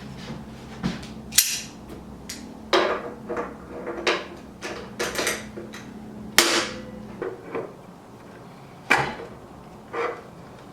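Sharp metallic clicks and knocks, irregular and sometimes in quick pairs, as a vise grip is clamped onto and worked against the conical burr of a Baratza coffee grinder to unscrew it. A faint steady low hum underneath fades out about seven seconds in.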